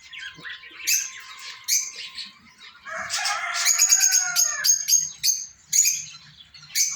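A group of small caged birds chirping and warbling over one another, with sharp high calls and, about halfway through, a quick run of short repeated chirps.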